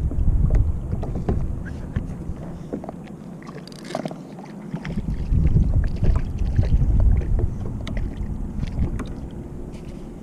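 Wind gusting over the microphone aboard a fishing kayak, strongest in the first two seconds and again from about five seconds in, with scattered light clicks and knocks from water and gear against the hull.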